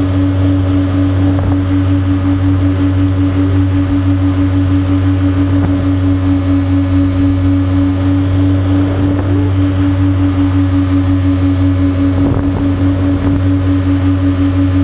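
Twin electric motors and propellers of a TwinStar model plane, heard from the onboard camera in flight: a steady motor hum that pulses rapidly, about five times a second, over airflow noise.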